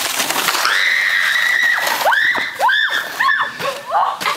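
A girl screaming on a sled run down a snowy hill: one long high scream, then several short shrieks, over the hiss of the sled sliding on snow.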